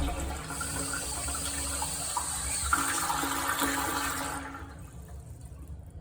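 Toilet flushing: a loud rush of water that dies away sharply about four and a half seconds in, leaving a much quieter flow.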